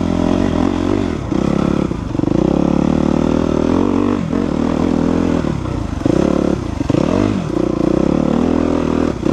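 2014 Suzuki RM-Z250 dirt bike's 250 cc single-cylinder four-stroke engine being ridden, the revs dropping and climbing again several times as the throttle is rolled off and back on.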